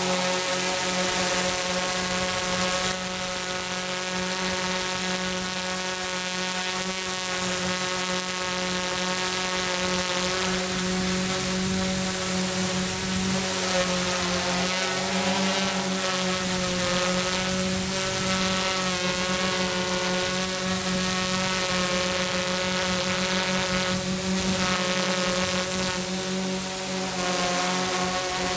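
TBS Discovery quadcopter hovering, its four DYS BE3608 630kv pancake-type brushless outrunner motors and propellers making a steady, many-toned buzz that wavers a little in pitch as the motor speeds adjust.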